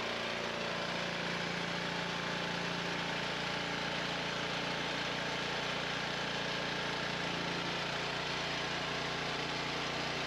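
Petrol engine fitted with a Thunderstorm Generator plasmoid unit running steadily, its water bubbler switched on.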